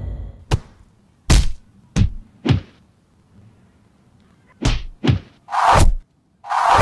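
Punch and kick hit effects for a staged fight: about eight sharp whacks with quiet gaps between them, four in the first three seconds, then after a short lull a quicker run of hits ending in two longer, heavier thuds.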